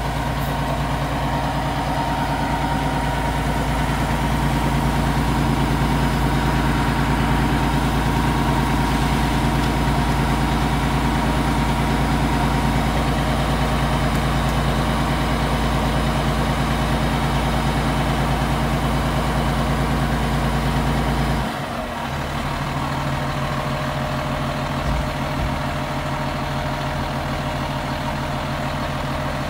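Fire engine's engine running steadily with a deep rumble. About two-thirds of the way through the deepest rumble drops away and it settles to a slightly quieter, steady idle.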